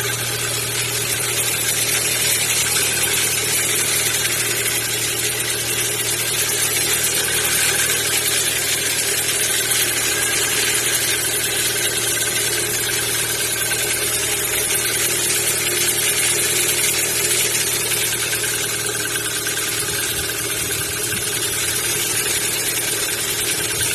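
Kia Ceed 1.6 engine idling steadily from a cold start, with a knock that the owner says is there only while cold and fades once the engine warms up. He likens it to the valves.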